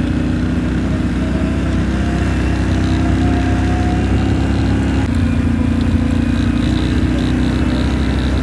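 Quad bike engine running steadily.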